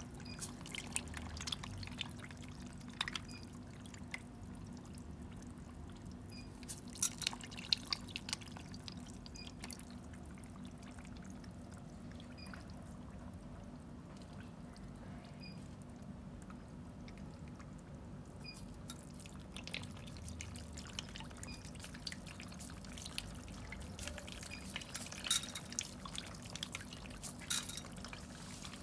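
Lele catfish (Clarias) thrashing and gulping at the water surface of a tank, making irregular small splashes and drips. The splashing comes in bursts a few seconds apart, quieter in the middle, over a steady low hum.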